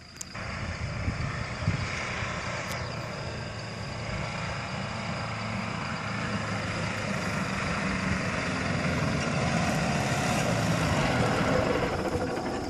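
Nissan GU Patrol's 3.0-litre four-cylinder turbo-diesel working hard in low-range third gear, pulling up a soft sand dune climb. It grows steadily louder as the truck comes up the slope, then the engine note drops away near the end.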